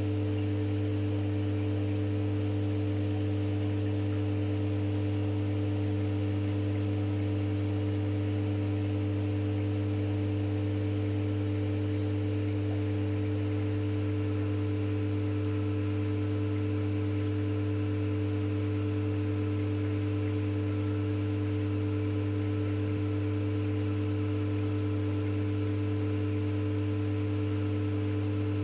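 Steady electric hum of an aquarium pump: a constant low buzz with a few fainter higher overtones, unchanging throughout.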